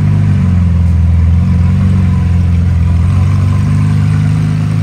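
Lamborghini Aventador LP700-4's V12 engine running at a steady idle, its pitch holding even throughout.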